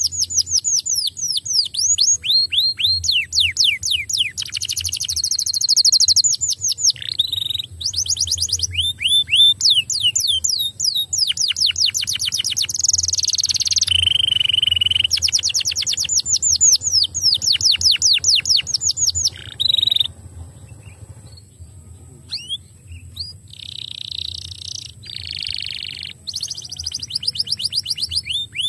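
Domestic canary singing in long fast trills of rapidly repeated downward-sweeping notes, each roll a different pattern, with a held buzzy note about halfway through. Past two-thirds of the way the song turns softer and comes in short broken phrases.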